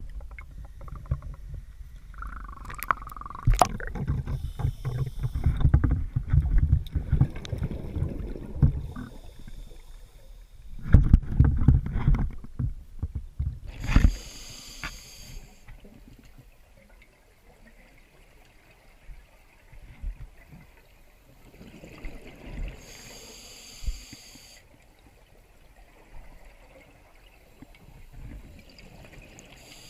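A scuba diver breathing through a regulator underwater. Heavy water sloshing and bubbling comes first, then two short hissing breaths about eight seconds apart, with quieter bubbling between them.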